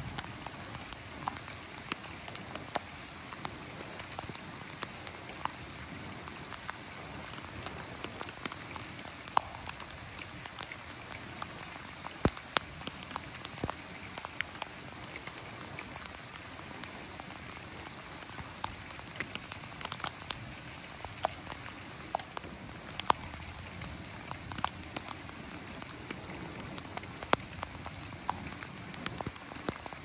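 Steady rain falling, an even hiss broken by many irregular sharp ticks of drops striking close by.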